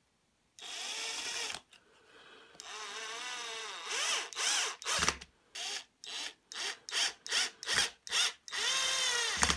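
Cordless drill-driver driving screws into wood. A short run, then a longer one whose pitch dips under load, then a string of quick trigger blips, about two a second, and a final longer run near the end.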